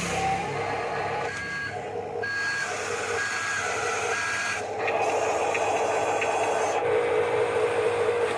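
Reversing beeper of an RC construction model, a short high beep about once a second for the first half, over the steady whine and rasp of small electric motors and gears that grows louder about halfway through.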